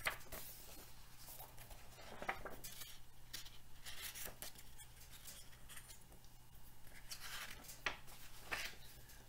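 Pages of a paperback picture book handled and turned, giving a series of brief, faint paper rustles over a steady low hum.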